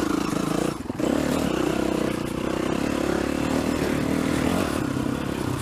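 Dirt bike engine running while being ridden, dropping off briefly just under a second in, then picking up again and holding fairly steady.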